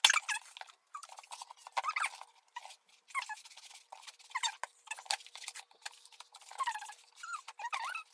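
Scissors cutting and scraping through packing tape on a cardboard shipping box, with repeated short squeaks as the blade drags through the tape and cardboard.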